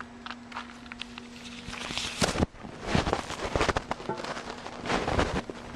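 A steady hum that stops a couple of seconds in, with scattered clicks and then a run of irregular knocks, clatter and scraping of hard objects being handled.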